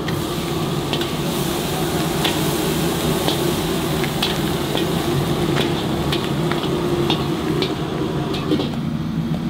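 Stir-fried eel sizzling as it is ladled from a wok into a hot clay pot, over the steady roar of the wok stove. Sharp clinks and scrapes of the metal ladle on the wok and the pot come about once a second.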